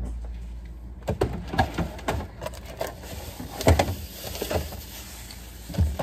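Rummaging in a refrigerator: jars, bottles and containers being moved and taken off the shelves, giving a series of irregular knocks and clinks. The sharpest knock comes nearly four seconds in.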